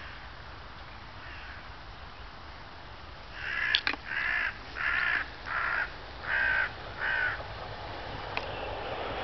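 A crow cawing six times in an even series, roughly one caw every two-thirds of a second, with a sharp click near the first caw.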